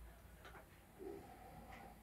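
Near silence, with a few faint ticks and a soft low bump about halfway through.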